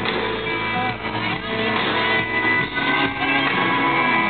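Live country band music played loud through a concert sound system, with strummed guitars prominent.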